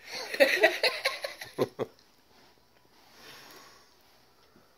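A young child laughing and giggling in short, choppy bursts for about two seconds, then only faint breathing.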